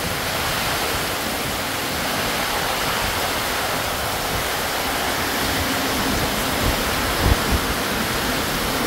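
Heavy tropical downpour: rain pouring down hard in a steady, even rush. A few brief low thumps come about seven seconds in.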